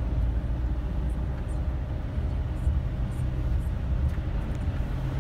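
Vehicle engine and road noise heard from inside the cab while driving, a steady low drone.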